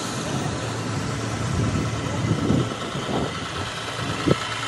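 City transit bus idling, a steady engine hum, under an even hiss of wind and rain, with a few short low thumps.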